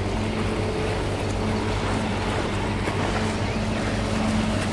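A large boat's engine running with a steady low drone, over an even rushing noise.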